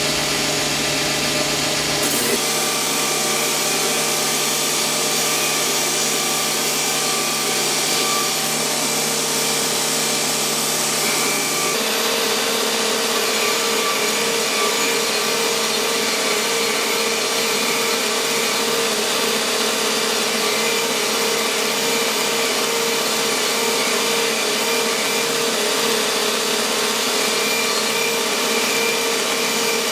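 Belt grinder running while a steel sword blade is ground against the belt on its contact wheel: a steady grinding hiss over a held motor tone, continuous throughout.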